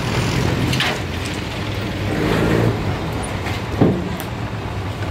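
Truck engine idling steadily in the street, with one brief louder sound near the end.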